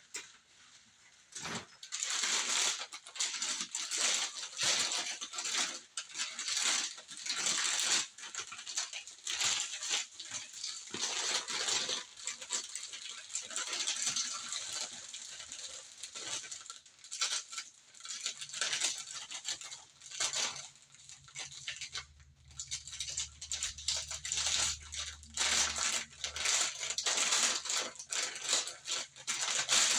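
Packaging rustling and crinkling in irregular bursts as a fabric mermaid tail is unwrapped and handled, with a low hum for several seconds past the middle.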